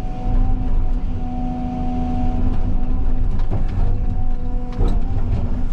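CAT 323 excavator working a cut: its diesel engine and hydraulics running with a steady hum over a low rumble, with a couple of sharp knocks about three and a half and nearly five seconds in.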